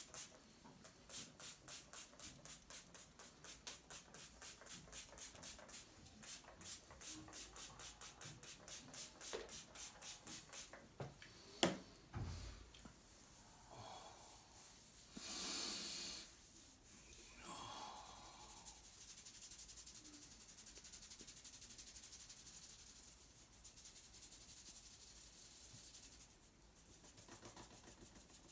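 Hands massaging a person with quick, even rubbing strokes, about four a second. A single sharp click comes near the middle, then the rubbing turns softer and steadier.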